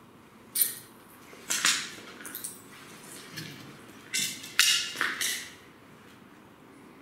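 About six crunching footsteps on a floor strewn with broken plaster and rubble, sharp and uneven in spacing, stopping about five and a half seconds in.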